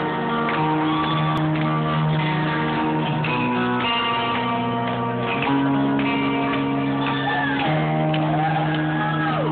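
Live electric guitar playing slow, held chords that change about every two seconds, heard from the audience at a rock concert. Crowd screams and cheers rise over it near the start and the end.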